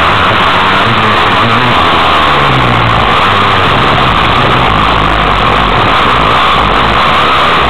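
Dirt bike engine running hard on a dirt track, its pitch wavering as it revs. It is heard loud on an onboard camera, under a steady rushing noise from wind and ground.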